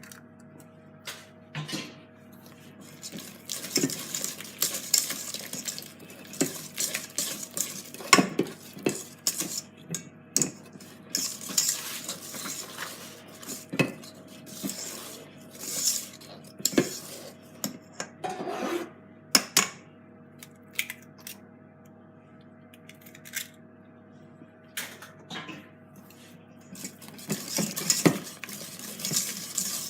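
A spoon or whisk clinking and scraping against a mixing bowl in irregular strokes while cake batter is stirred, over a faint steady hum.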